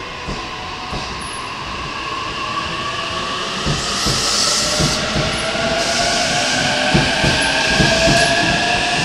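A 15-car E231-series and E233-series electric multiple unit pulls away and accelerates. Its traction motor whine rises steadily in pitch, the wheels clack over rail joints faster and faster, and there are a few short hisses.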